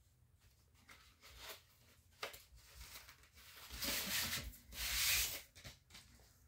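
Paper and cardboard of a vinyl record's packaging rustling and rubbing as it is handled. There is a light tap about two seconds in, and the rustling is loudest about four to five seconds in.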